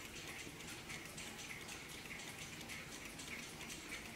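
Warmink Dutch mantel clock's mechanical movement ticking steadily, a regular run of short, light ticks.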